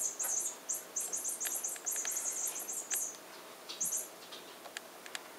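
A squeaky toy mouse squeaking in quick runs of high-pitched chirps as cats play with it, through the first three seconds and once more briefly about four seconds in, with a few light taps.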